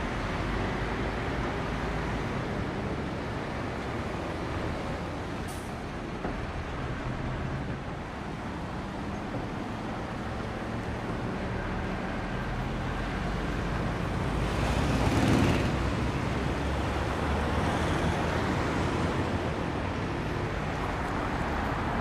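City road traffic at a junction: a steady wash of car and truck engines and tyres on the road. One vehicle passes louder about fifteen seconds in.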